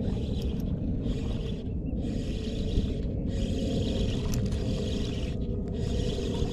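Spinning reel being cranked in short spells of a second or two with brief pauses between, over a steady low rumble.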